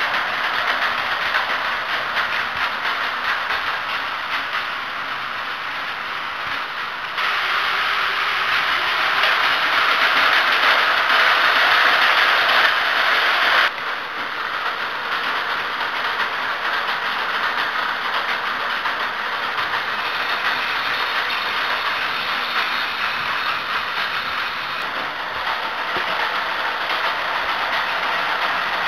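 Battery-powered Plarail toy trains running on blue plastic track: a steady whirr of small motors with rattling wheels on the plastic rails. It jumps louder about seven seconds in and drops back about fourteen seconds in.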